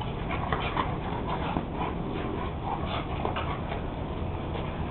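Two dogs play-fighting, making short, quick dog noises in rapid succession over a steady low rumble.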